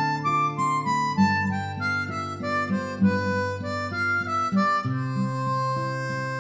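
Instrumental background music: a melody of short notes stepping up and down over a steady low accompaniment.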